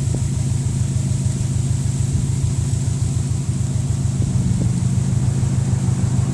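Steady low rumble of a car driving, engine and road noise together, holding an even level throughout.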